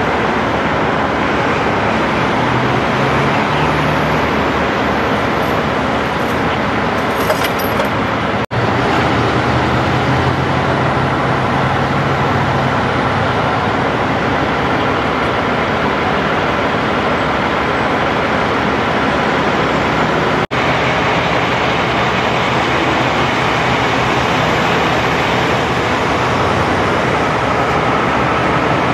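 Steady freeway traffic noise: cars and trucks passing with a continuous rush of engines and tyres. The sound drops out for an instant twice, about eight seconds in and again about twenty seconds in.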